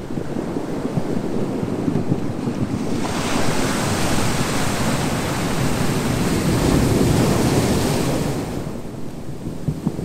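Ocean surf on a beach: a low rumble of the sea, then from about three seconds in a broad hiss as a wave breaks and washes up the shore, which fades away near the end.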